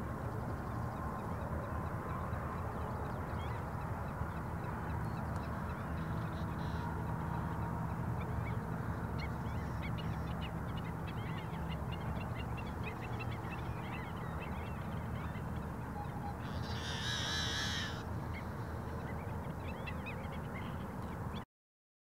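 Yellow-headed blackbird calling, with scattered short harsh notes and one loud, harsh buzzing song lasting about a second and a half, about three-quarters of the way through. The audio cuts off abruptly near the end.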